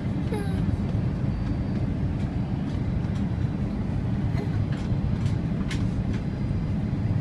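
Steady low rumble of engine and airflow noise inside the cabin of an Airbus A330-300 airliner on its descent to land, with a few faint clicks in the middle.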